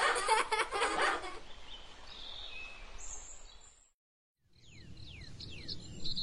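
A short burst of giggling children's voices, then a soft outdoor countryside ambience. After a brief drop-out, birds chirp with quick falling whistles over a steady, evenly pulsing high trill.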